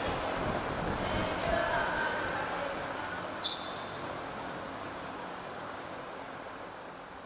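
Hubbub of players' voices and chatter on an indoor basketball court, with a few short, high squeaks of sneakers on the floor, the loudest about halfway through. The whole sound fades gradually toward the end.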